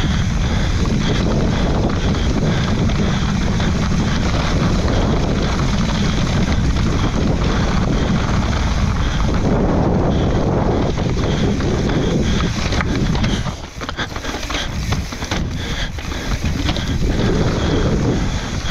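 Wind buffeting a helmet-mounted camera microphone during a fast mountain bike descent, with tyres and bike clattering over rough trail. The wind rumble drops off sharply about two-thirds of the way in, leaving rapid rattling and clicking.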